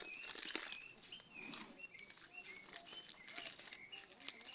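Small birds chirping, many short high chirps repeating in quick succession, with faint scattered clicks and knocks.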